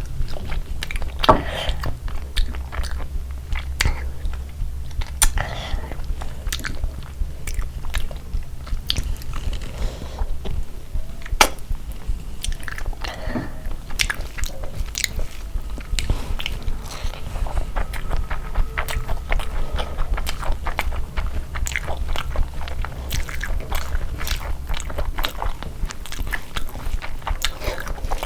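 A person eating close to the microphone: steady chewing and crunching with frequent short clicks and mouth smacks, over a steady low hum.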